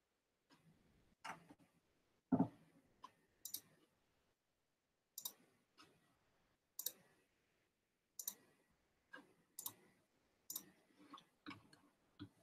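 Scattered clicks from working a computer, about fifteen at irregular spacing of roughly one a second, faint and with silence between them; the loudest comes a couple of seconds in.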